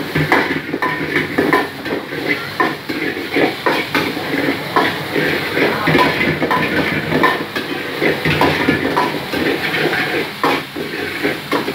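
A metal ladle clanking and scraping against a steel wok, about twice a second, as food is stir-fried, over a steady sizzling hiss from the hot pan.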